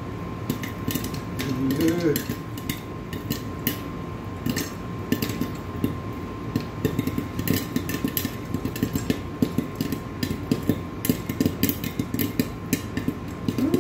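Popcorn kernels popping in a lidded saucepan, sharp pops scattered at first and coming thicker in the last few seconds.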